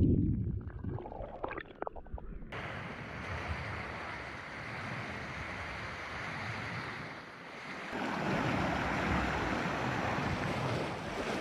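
Muffled underwater bubbling and rumble, cutting suddenly after about two and a half seconds to open-air sea sound: a steady wash of water noise, with waves breaking and splashing over rocks growing louder about eight seconds in.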